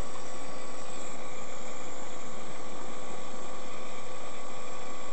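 Steady road and engine noise of a vehicle driving, heard inside the cabin through a dashcam microphone, with a faint constant whine.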